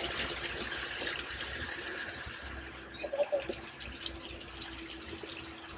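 Water running and splashing steadily, a continuous hiss, with a short faint squeak about three seconds in.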